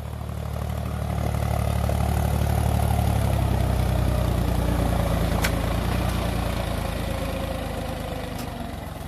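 Diesel farm tractor engine running under load as it puddles a flooded paddy field on iron cage wheels. It grows louder as the tractor passes close by, then fades as it moves away.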